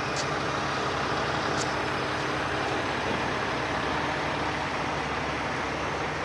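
A 40-ton rotator tow truck's diesel engine running steadily.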